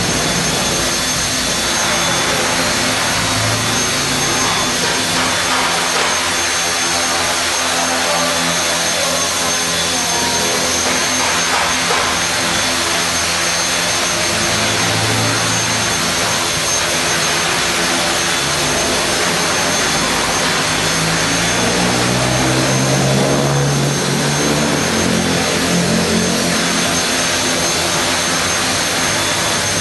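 HK450GT Pro 450-size electric RC helicopter hovering on a test flight after a rebuild. Its motor and gears give a steady high whine over the whoosh of the rotor blades, and the lower drone shifts up and down in pitch as the helicopter holds its hover.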